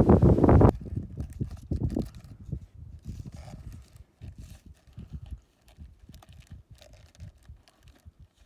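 Wind buffeting the microphone: a heavy, even rush for the first second, then lighter, irregular gusts and flutters.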